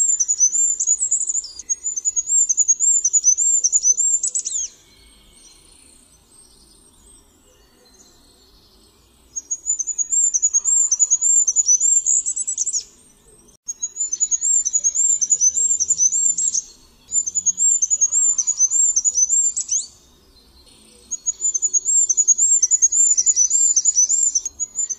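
Goldcrest (Regulus regulus) singing: phrases of rapid, very high-pitched repeated notes, each a few seconds long and ending in a short downward flourish, with brief pauses between them.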